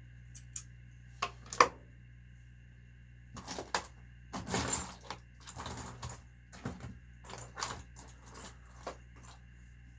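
Small metal tools clinking and rattling as they are rummaged through: a few sharp clinks in the first two seconds, then a long run of irregular clatter from about three seconds in.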